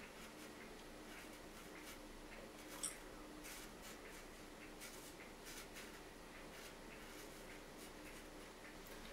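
Faint, short scraping strokes of a straight razor cutting through lathered stubble, with one sharper scrape about three seconds in.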